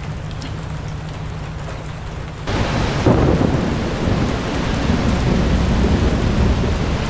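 Heavy rain falling hard, an even hiss over a deep low rumble. About two and a half seconds in, the sound jumps suddenly to louder, fuller rain.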